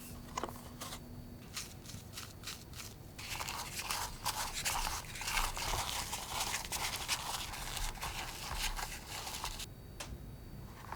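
Cocoa tart dough being worked in a bowl with a kitchen utensil: a few light taps, then about six seconds of continuous scraping.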